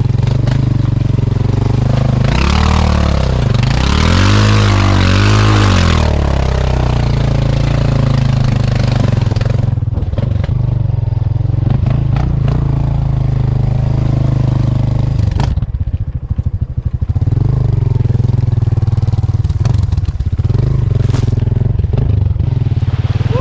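Habal-habal motorcycle taxi's engine running under way. A few seconds in, the revs rise and fall several times under a loud rushing noise.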